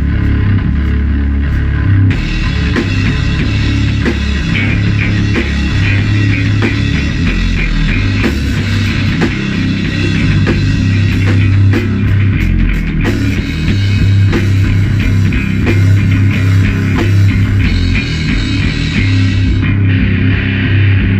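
Stoner-doom rock jam: distorted electric guitar through a Marshall stack, with bass and a drum kit, playing loud and heavy. The full, bright guitar sound comes in about two seconds in and drops back near the end.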